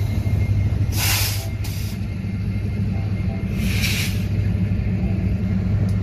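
Freight train of autorack cars rolling past behind a BNSF diesel locomotive: a steady low rumble, with two short bursts of hiss about a second and four seconds in.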